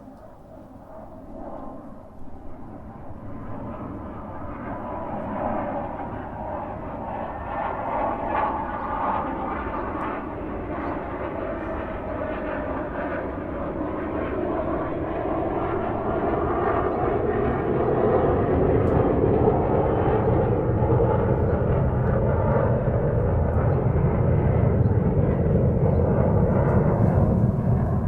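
Airplane engine and airflow noise growing steadily louder, with a deep rumble building over the second half.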